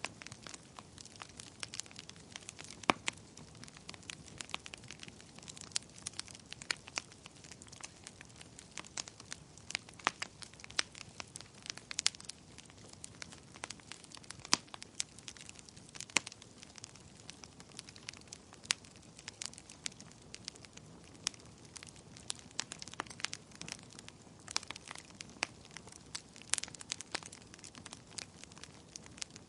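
Fire crackling, with irregular sharp pops and snaps a few times a second over a faint steady hiss.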